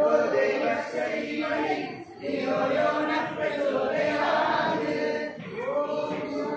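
A group of women singing a Hindu devotional chant (bhajan) together in unison, with long held notes and a short break about two seconds in.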